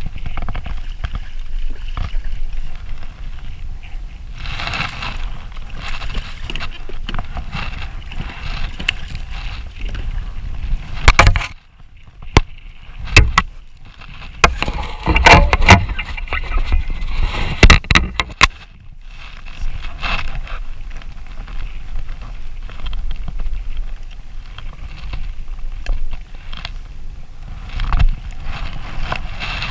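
Water lapping against a kayak hull under a steady low rumble. About halfway through comes a cluster of sharp knocks and scrapes as a hooked striped bass is brought alongside and handled at the side of the kayak.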